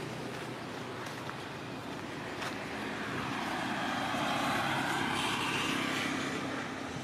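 Engine noise of a passing vehicle: a steady rumble and hiss that swells about four seconds in and eases near the end.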